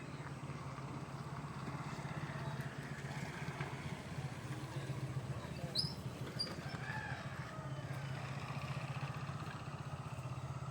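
A motor running steadily with a low, evenly pulsing hum, and a couple of short high chirps about six seconds in.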